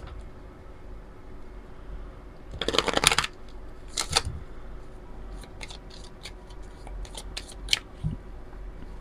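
A deck of oracle cards shuffled by hand: a dense rustle of sliding cards about three seconds in and a shorter one about a second later, then a run of light clicks and taps as the cards are squared up, with a soft knock near the end.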